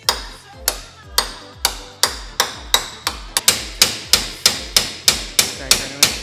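Repeated hammer blows, sharp and ringing, at first about two a second and then quickening to about three a second.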